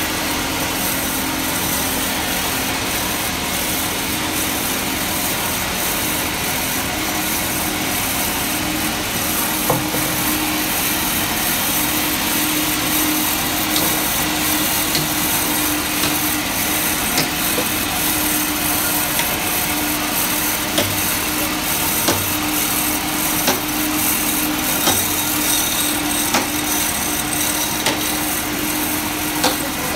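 Sawmill machinery running with a steady noise and hum, while a hammer knocks steel dogs into a large log on a band-saw carriage, sharp strikes at irregular intervals.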